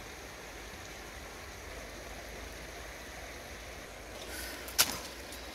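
Steady outdoor background noise with a single sharp click near the end.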